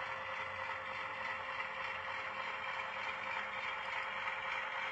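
HO scale model diesel locomotive running slowly along the track: a steady, even running sound with a faint constant tone.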